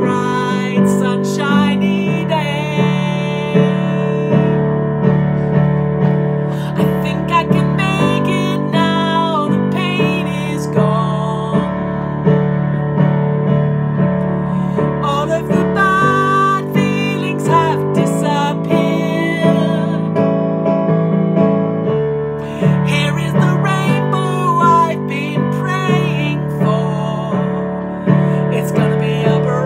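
Upbeat pop backing track with keyboard chords over a steady four-count beat, a melody line wavering over the top.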